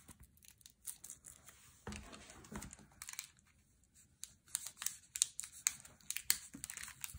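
Plastic wrapping on a shrink-wrapped photo book crinkling and crackling as it is handled, in irregular short crackles that come thickest in the second half.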